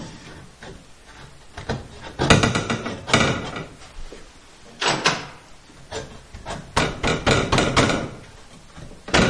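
Wooden 2x4 blocks knocked and pushed by hand into place between wall studs: a few separate wood-on-wood knocks, the loudest a little over two seconds in, then a quick run of knocks about seven seconds in.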